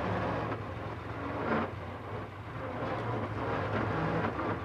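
Engine of a vintage pre-war open racing car running steadily as it drives along, with a low, even drone under wind and road noise.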